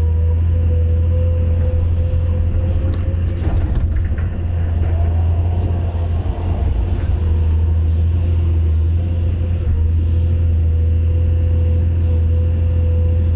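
Excavator diesel engine running steadily with a deep hum and a steady higher whine, a few clicks and knocks about three to four seconds in, and a brief rise in pitch a little later.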